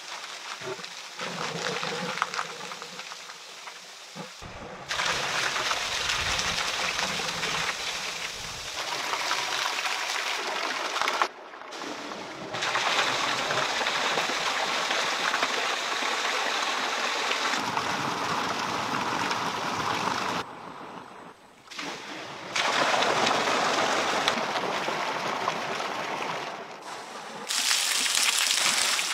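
Water pouring and splashing from bamboo pipe spouts into a pool: a steady rushing that jumps abruptly in level several times.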